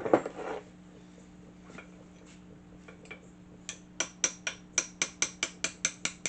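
A hammer striking in a quick, even run of about a dozen sharp metallic blows, about four a second, knocking a pressed-in handle out of a table saw's cast hand wheel. A brief clatter of metal parts being handled comes at the very start.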